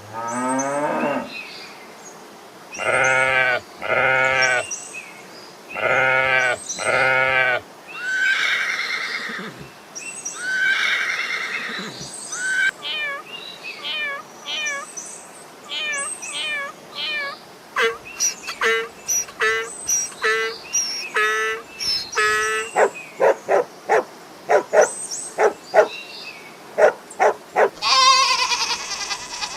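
Farm animals calling one after another: a moo fading out at the start, then pairs of drawn-out bleats, and later quick runs of short calls that grow louder toward the end.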